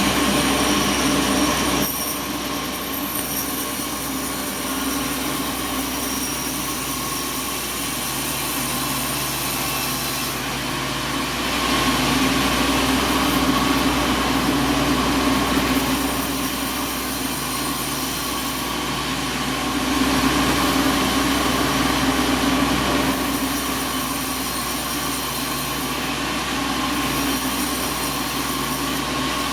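Sawmill machinery running steadily, a constant mechanical drone with a low hum. The level shifts up and down every several seconds.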